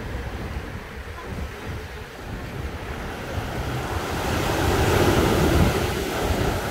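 Small ocean waves washing onto a sandy beach, one wave swelling and breaking about five seconds in before the wash subsides.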